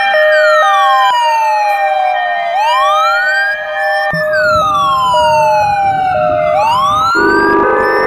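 Ambulance siren wailing: a tone that sweeps up quickly and falls slowly about every four seconds, over a two-tone hi-lo that steps between two pitches. A low rumble joins about halfway through, and a lower pulsing tone joins near the end.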